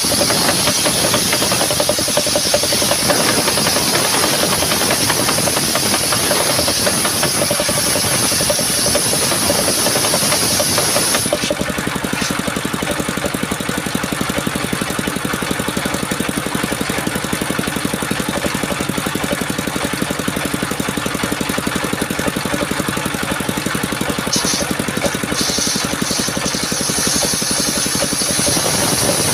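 Engine-driven sawmill saw running continuously. A high hiss over the engine drops away about eleven seconds in, leaving the engine's steady hum, and returns briefly near the end.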